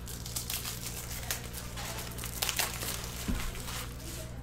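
Crinkling and tearing of a trading-card pack wrapper as it is handled and opened: a run of short, sharp crackles, over a steady low hum.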